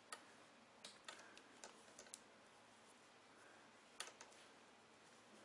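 Faint, irregular clicks of knitting needles as stitches are worked, with a cluster in the first couple of seconds and another pair about four seconds in, against near silence.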